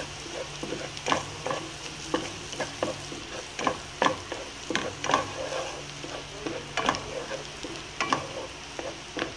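Minced garlic sizzling in melted butter in a nonstick wok as it browns, with a wooden spoon stirring and knocking against the pan about every half second.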